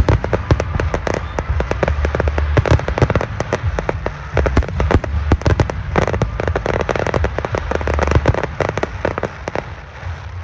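Fireworks going off in a dense barrage: many rapid crackling bangs over deep booms, without a break.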